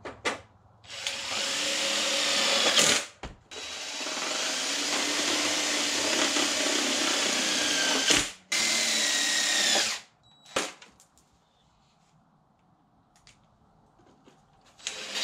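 Cordless drill driving self-tapping screws into a panel to mount computer fans: three long motor runs with short gaps, the pitch falling near the end of the later runs. It stops about ten seconds in.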